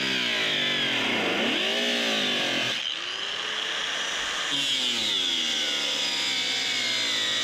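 Chicago Electric 4-1/2 in. 6 amp corded angle grinder with a cutoff wheel cutting through metal. The motor's pitch sags as the wheel bites into the cut and climbs back as the load eases, several times over, with a short let-up about three seconds in.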